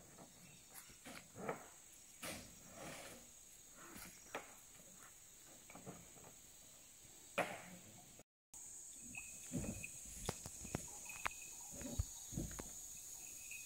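Insects' steady high-pitched drone, with scattered light knocks and rustles over it.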